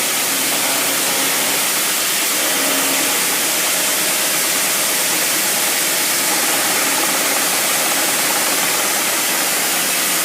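CNC machine tool cutting steel: a steady, loud rushing hiss, with a faint hum underneath that stops about three seconds in.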